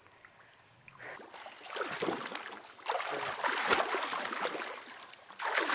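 Pond water splashing and sloshing as people wade through it dragging a fishing net, starting about a second in and going on irregularly.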